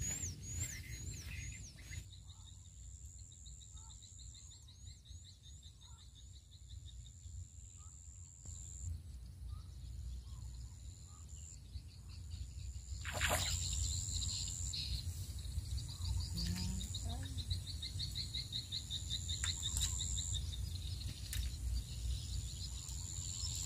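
Pondside ambience: high-pitched bird chirps and rapid insect trills, over a low steady rumble. One sharp knock about thirteen seconds in.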